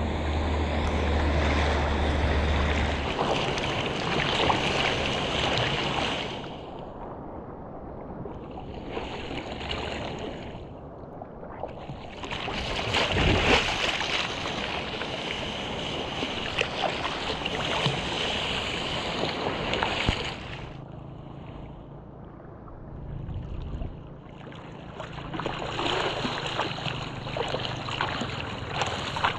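Rushing, splashing seawater and wind heard from a helmet-mounted GoPro while surfing, rising in three long surges of several seconds each, with quieter stretches between.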